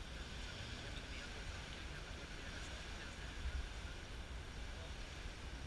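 Steady outdoor background: low wind rumble on the microphone under an even hiss, with no distinct events.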